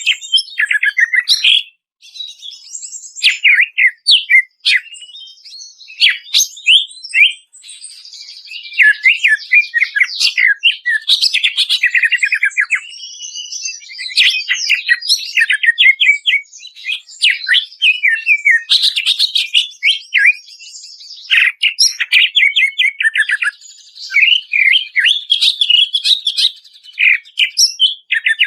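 Cucak ijo (green leafbird) singing without a break: a fast, varied song of sharp whistled notes and quick runs of short descending notes, interspersed with buzzier passages.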